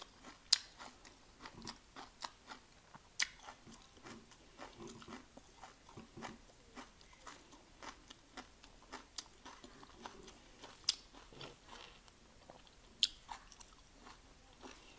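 Close-up chewing and crunching of crisp raw vegetables: a run of small wet crackles with a few sharper crunches now and then.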